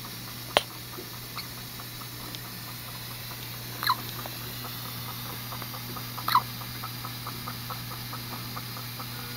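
A tiny premature newborn hiccuping: two short, high, squeaky hics about two and a half seconds apart, over a steady low hum. A sharp click sounds about half a second in.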